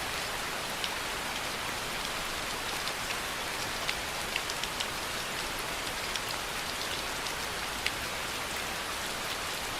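Steady rainfall hissing, with scattered louder drips ticking on a surface now and then.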